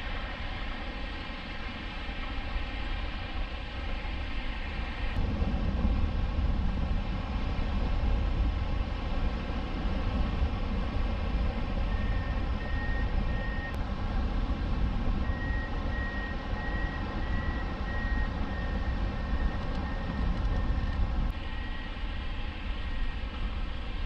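Wind rushing over the microphone of a camera mounted on a flying hang glider: a steady, heavy low rumble of airflow with a faint steady hum. The sound changes abruptly about five seconds in and again near the end.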